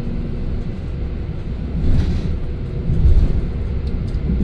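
Passenger train running at speed, heard from inside the carriage: a steady low rumble from the wheels and running gear, swelling briefly about two and three seconds in.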